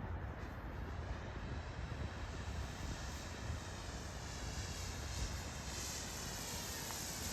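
Large electric-powered RC stunt plane, a 3D-printed Edge 540 running on a 12S battery, flying with its motor and propeller giving a steady whir.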